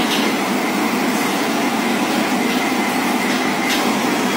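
Steady rattling noise of a train running on rails, with three faint clacks about a second and a quarter apart.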